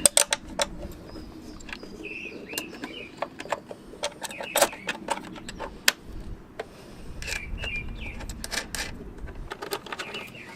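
Scattered clicks and knocks of a bonnet hinge and its bolts being handled and offered up to a car's front end for a test fit, with birds chirping now and then in the background.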